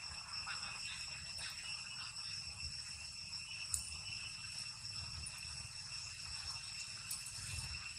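Steady insect chorus: several high, shrill tones held without a break, with a single sharp click just under halfway through.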